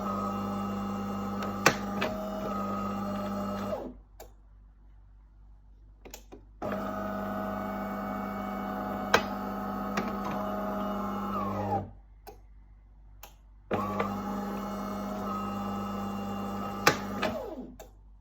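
De'Longhi Magnifica coffee machine running with a steady hum in three bursts of four to five seconds each, stopping for two to three seconds in between, with sharp clicks as it starts and stops: the strange noise its owner is puzzled by.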